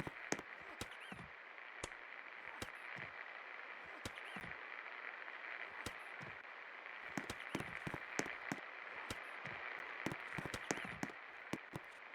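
A 56 inch Best Electric Works Rupa ceiling fan running: a steady airy whoosh, with many irregular sharp clicks and crackles.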